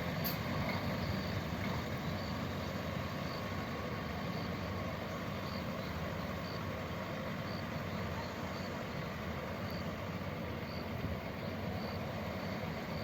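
Sightseeing bus's diesel engine running steadily, a low rumble, with faint high ticks repeating about every half second.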